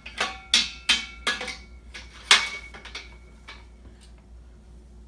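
Metal parts of a Z-frame clothes rack clanking together as they are handled: several sharp knocks in the first second and a half, then a louder, briefly ringing clank a little over two seconds in, and a lighter knock after it.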